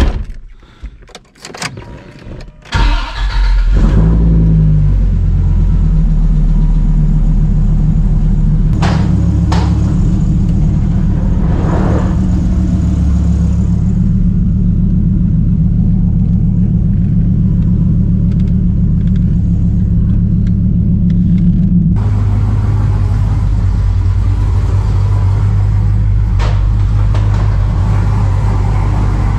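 Dodge Viper's V10 cranking and catching about three seconds in, then running steadily as it is moved, heard from inside its cabin. About 22 seconds in it cuts abruptly to a different engine running steadily: the Dodge Dakota R/T pickup's V8.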